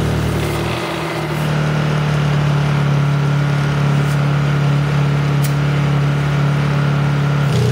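Honda EU2000 inverter generator's engine running hard at full throttle as a large electric air compressor starts about a second in and runs off it, putting the generator under heavy load. The hum is steady once the compressor is going, and the sound changes again near the end.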